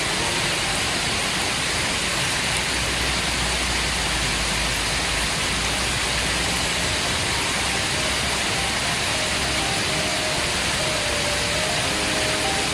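Steady rushing and splashing of a large musical fountain's water jets falling back into the pool, with faint music under it that grows a little clearer near the end.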